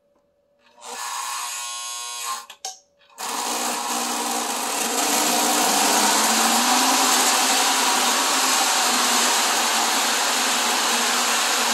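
Lionel MPC-era Illinois Central GP9 O-gauge diesel's electric motor and wheels running on the track while it pulls freight cars, a steady mechanical whir and rumble. A short burst of motor sound comes first, then a moment's pause, and from about three seconds in the train runs steadily.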